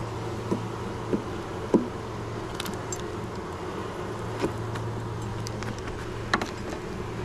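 Honeybee colony humming steadily in an open hive, with a few short clicks scattered through. The colony is queenless, and a decently loud hum like this is what bees do when they are not queenright.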